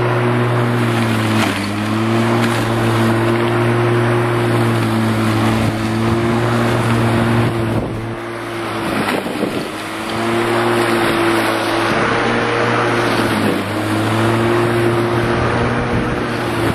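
Bosch Rotak 34R corded electric rotary mower's 1300 W motor and blade running while cutting long grass: a steady hum that sags in pitch a few times and breaks up for about two seconds midway.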